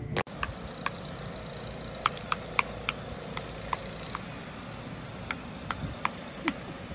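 A sharp click just after the start, then scattered light clinks and ticks, irregularly spaced, over a steady low hiss.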